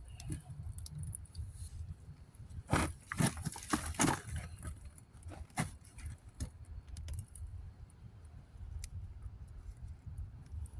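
Hands working in loose garden soil around freshly dug sweet potatoes: a cluster of short rustles and scrapes about three to four seconds in, then scattered faint ticks, over a low steady rumble.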